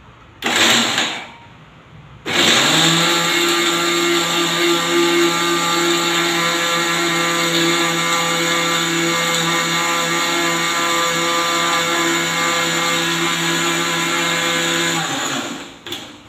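Electric mixer grinder (mixie) pulsed once briefly, then run steadily for about thirteen seconds before switching off, grinding peanuts and country sugar into a fine powder.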